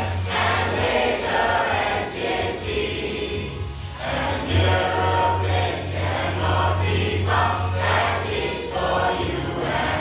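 A choir of voices singing a song with musical accompaniment and a steady low bass underneath.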